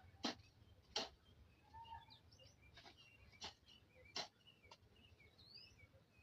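Small birds chirping with many short, high calls, broken by about four sharp knocks at irregular intervals, which are the loudest sounds.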